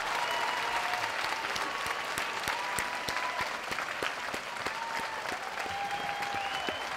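Audience applauding steadily with dense clapping, with a few whistles rising over it.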